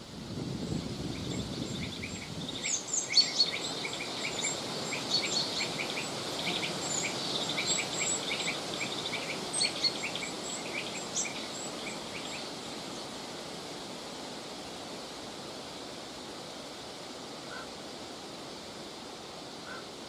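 Wind blowing steadily, with a stronger gust in the first few seconds, while a flock of small songbirds calls in many short, high chirps that thin out and stop about twelve seconds in.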